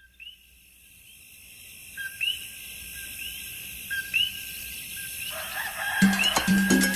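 Coquí frogs calling, a short two-note "co-qui" with the second note rising, repeated about once a second over a hiss that slowly grows louder. About six seconds in, salsa-style music starts, with a plucked bass line and maracas.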